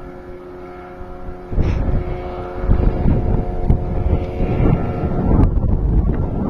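Suzuki DT 9.9 two-stroke outboard on an inflatable boat running at speed, a steady engine drone. From about a second and a half in, loud gusts of wind on the microphone rumble over it.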